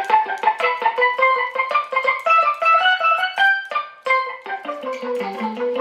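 Electric guitar played in short staccato notes through a Digitech Whammy V set one octave up and mixed with the dry signal, with overdrive and plate reverb filling the decay, giving a steel-drum-like ping. A quick melodic run of about five notes a second, moving lower near the end.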